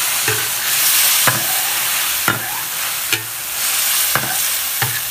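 Sauce bubbling and sizzling in a large iron wok as it reduces. A ladle stirs it, scraping and clinking against the wok about once a second.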